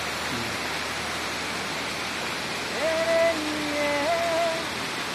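Steady rush of river water spilling over a low weir. About three seconds in, a man's singing voice holds a long note, stepping up slightly in pitch, over the water.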